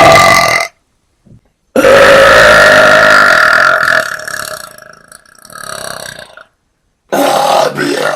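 A woman's very loud, long burps, forced up from air she has swallowed into her stomach. One ends just after the start. A long, steady one of about two seconds begins about two seconds in and trails off, and another loud burp starts near the end.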